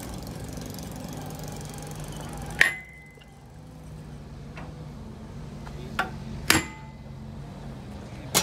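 A hammer striking steel parts four times, each blow a sharp metallic clang, some leaving a brief ring, with a steady machine hum underneath.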